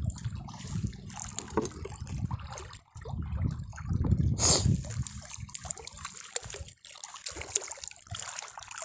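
Shallow seawater sloshing and trickling close by, with handling rustles and clicks close to the microphone; one louder rustle about four and a half seconds in.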